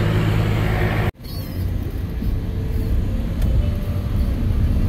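Low, steady engine rumble with a hum, broken by an abrupt cut about a second in, after which a noisier low rumble builds back up.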